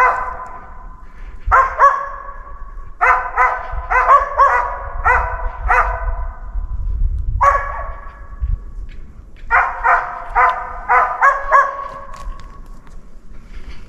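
Hunting laika barking in bouts of several barks at about two a second, with short pauses between bouts: the steady baying of a dog holding a capercaillie treed for the hunter.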